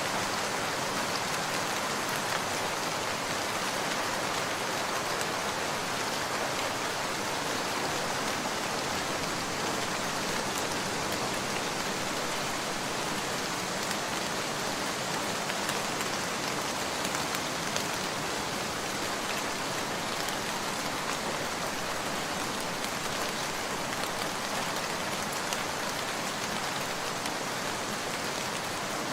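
Steady, even rain falling, with a few single drops ticking sharply now and then.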